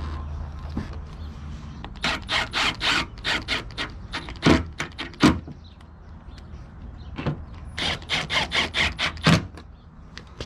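Two runs of quick clicks and knocks, about five a second, with a few heavier thuds between and within them, over a steady low hum.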